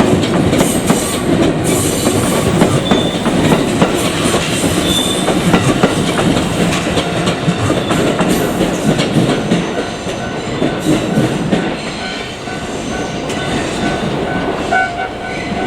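JR Kyushu 787-series electric train running past, its wheels clattering over the rail joints in a steady rumble. A steady tone sets in near the end.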